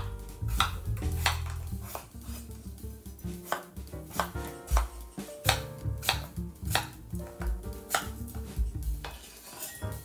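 Kitchen knife chopping peeled raw potatoes on a wooden cutting board: sharp knocks of the blade through the potato onto the board, repeating a little under twice a second.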